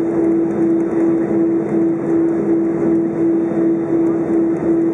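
Steady cabin hum of an Airbus A320 moving slowly on the ground with its engines at idle. One tone pulses about two to three times a second over a steady rush of air.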